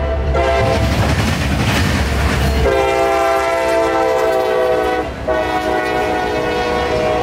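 A CSX freight train's locomotive horn blowing long blasts, broken briefly about five seconds in, over the low rumble of the locomotive and freight cars rolling past on the rails.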